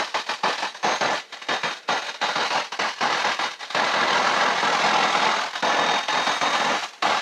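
Crackling, hissing static in the cockpit headset audio, cutting in and out rapidly.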